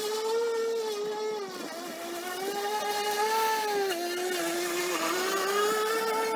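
EGO battery-powered lawn mower running, its electric motor and blade giving a steady whine; the pitch sags twice, about two seconds in and again around four to five seconds in, then climbs back.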